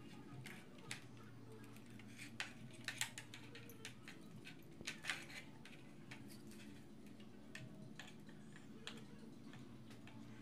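Faint, irregular clicks and small knocks of hands working at a rattan bird perch while a spotted dove is fastened onto it, busiest about three and five seconds in, over a low steady hum.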